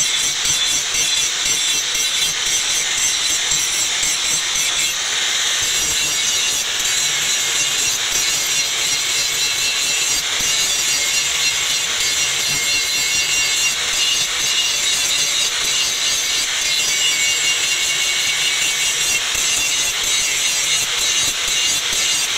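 Handheld angle grinder running continuously with an abrasive disc pressed against the steel of an axe head: a steady, high grinding hiss as the disc grinds the metal.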